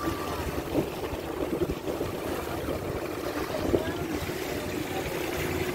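Wooden river boat under way at speed: a steady rush of water along the hull and wind buffeting the microphone, with faint voices on board.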